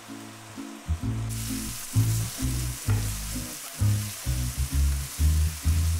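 Chopped onions sizzling in hot oil in a pan. The sizzle jumps up suddenly about a second in as they hit the oil, then holds steady, over background music with a steady bass beat.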